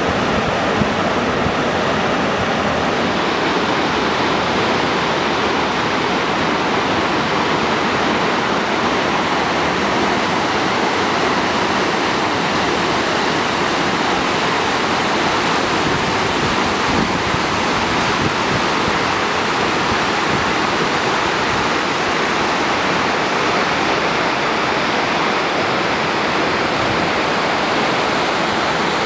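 Steady rushing of flowing water, a swollen river or stream running fast after heavy rain.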